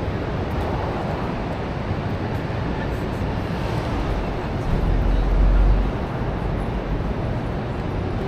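Busy city street ambience: a steady wash of traffic and crowd noise, with a louder low rumble a little under five seconds in that lasts about a second.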